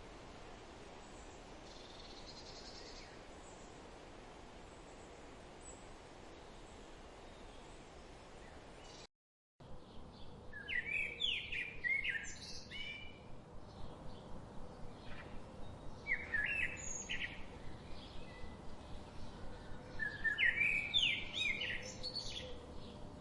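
Steady flowing-water noise from a stream, cutting out briefly about nine seconds in. After the cut a songbird sings three short bursts of song over the running water.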